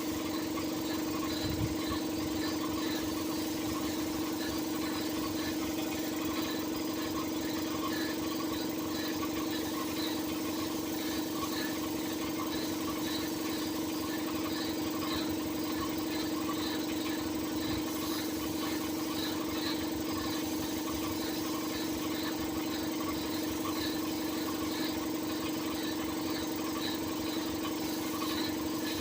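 Compressor running steadily with a constant hum and a light ticking repeating about twice a second, the weird noise its owner is puzzled by.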